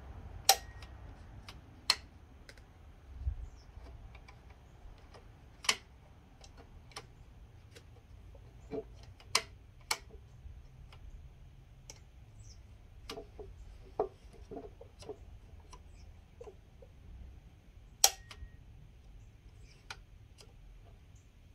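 Sharp clicks and light knocks, a dozen or so at irregular intervals, from hands working the controls of a Partner K700 two-stroke cut-off saw while priming it before a start; the engine is not running.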